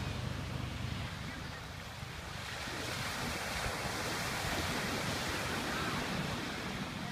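Surf washing on the shore, with wind rumbling on the microphone; the wash swells about two and a half seconds in and eases near the end.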